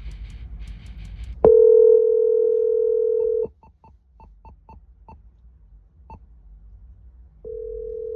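Phone call ringback tone playing through the car stereo's speakers during an outgoing CarPlay call. A steady two-second ring sounds, a run of short beeps follows, and a second ring starts near the end.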